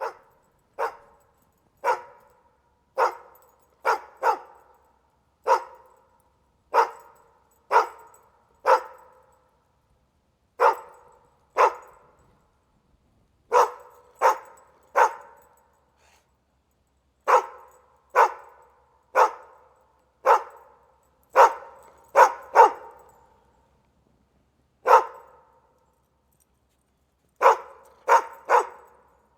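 A dog barking: about two dozen short single barks, irregularly spaced, often a second or more apart and sometimes in quick pairs or threes, with clean silence between them.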